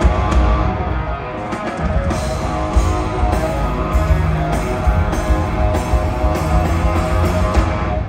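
Live rock band playing loud, with electric guitars, bass and a drum kit, and no singing, then stopping abruptly at the very end as the song finishes.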